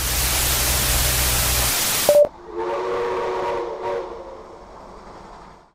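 Television static hiss that cuts off abruptly about two seconds in, then a short beep, then a train whistle sounding a steady chord for about a second and a half before fading away.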